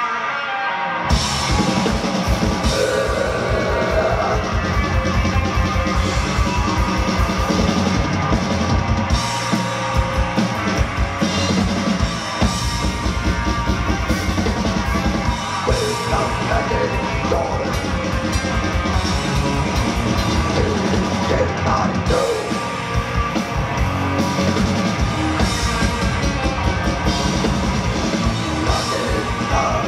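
Live metal band playing at full volume: distorted electric guitars over fast, dense bass-drum strokes. The low drums drop out for about a second at the start, then come back in and keep going.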